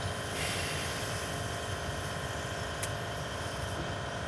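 Lockside pump-out machine running steadily, its pump drawing waste from a narrowboat's toilet tank. There is a brief rush of hiss about half a second in and a light click about three seconds in.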